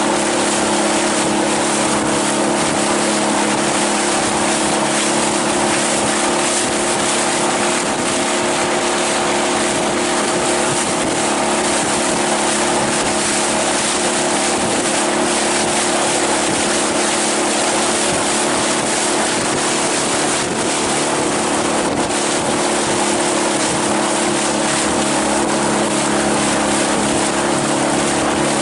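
Outboard motor running at a steady, unchanging pitch while the boat is under way, over a constant loud rush of wind and water.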